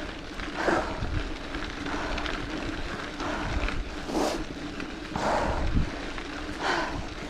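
A mountain biker panting hard while climbing a steep dirt road, heavy breaths about once a second, with wind buffeting the microphone and a low rumble of tyres on the dirt.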